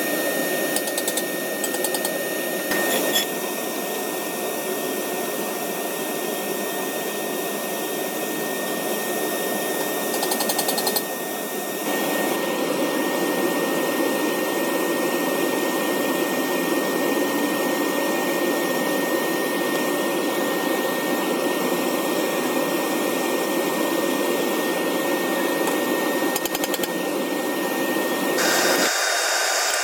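Burner of a large aluminum-melting foundry furnace running, a steady rushing noise with a thin steady whine over it. It gets louder about twelve seconds in, and near the end it changes abruptly to a thinner, higher hiss.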